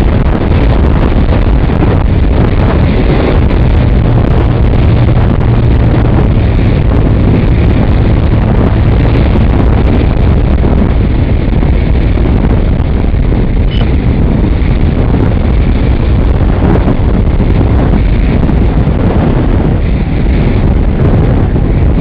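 Strong wind buffeting the microphone of a wing-mounted camera on a Multiplex Blizzard RC plane in fast flight, with the electric motor and propeller running underneath. A low steady hum stands out from about four to ten seconds in.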